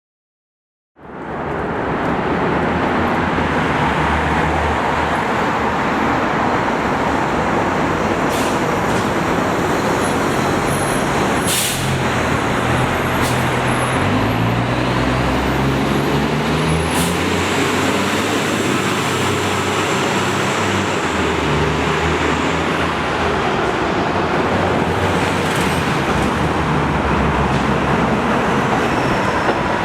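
MCI D4500CL coach with its Caterpillar C13 diesel engine running, its engine note climbing in steps partway through as it pulls away, with a few short hisses.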